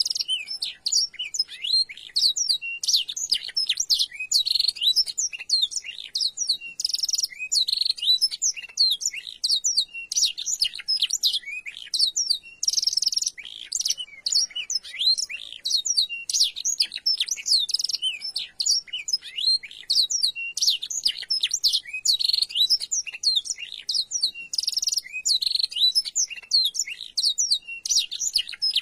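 Domestic canary singing a fast, unbroken song of high chirps, trills and quick down-sweeping notes, its song filled with phrases learned from the black-throated canary.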